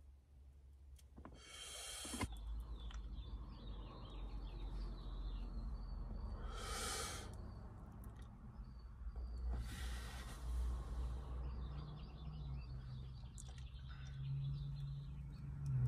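A person breathing while smoking a joint: three short breathy drags and exhales, about a second and a half in, about seven seconds in and a longer one around ten seconds. Faint bird chirps and a steady low rumble run underneath.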